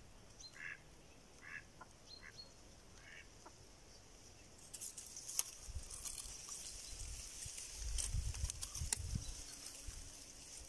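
A hen mallard, the live decoy duck, gives a run of short quacks in the first few seconds, calling to the drake. In the second half there is rustling, crackling and low rumbling close to the microphone.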